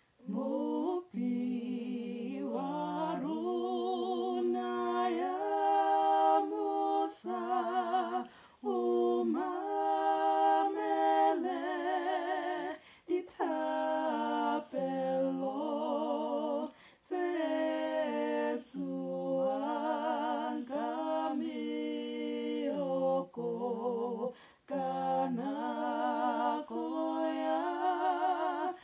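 A woman singing a Sesotho song a cappella, her own voice recorded twice and layered in two-part harmony. The song moves in phrases of held notes with vibrato, with short breath breaks between them.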